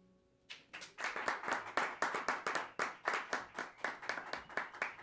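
Audience clapping at the end of a song, starting about half a second in and thinning out near the end.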